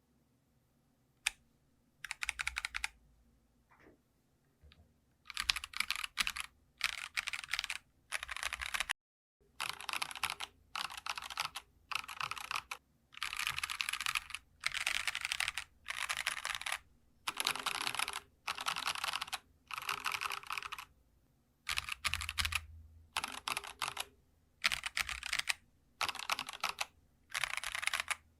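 Typing on a Geekstar mechanical keyboard: rapid keystrokes in short bursts of about half a second to a second, with brief pauses between them. It has the light 'dogak-dogak' clacky sound of this board.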